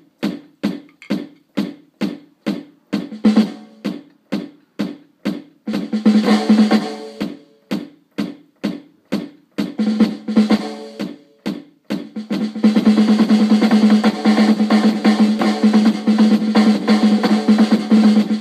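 Electronic drum kit: one drum sound struck in steady single hits about three times a second. It thickens into quicker flurries twice, then breaks into a fast, continuous roll for the last third.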